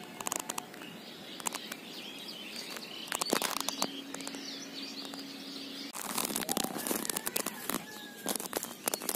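Birds chirping outdoors, over frequent crackling and rustling clicks that become much denser in the second half. A steady low hum is heard for a couple of seconds in the middle.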